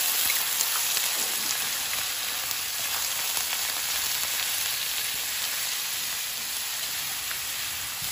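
Beef brisket chunks sizzling in hot oil in a wok with whole spices as they are stir-fried: a steady hiss with the odd faint tick.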